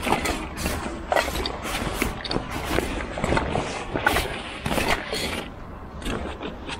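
Thin plastic bag rustling and crinkling in irregular bursts as gloved hands rummage inside it.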